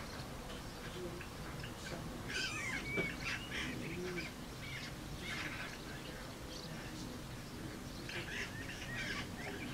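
Eurasian magpies giving harsh, rattling chatter calls in three bursts as they fight at their nest, with a couple of short whistled notes mixed in.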